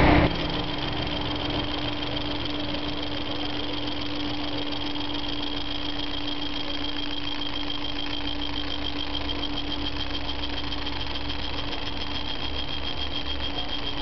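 Sei Laser Giotto 115 W CO2 laser engraver running while it engraves denim: a steady machine hum with a constant low tone and a high, finely pulsing whine. A louder burst of noise cuts off just after the start.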